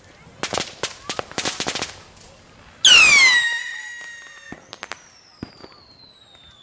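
Sky rockets going off: a quick run of sharp cracks and pops, then about three seconds in a sudden loud whistle that drops steeply in pitch and holds for over a second. A fainter whistle sliding slowly down in pitch follows from about five seconds in.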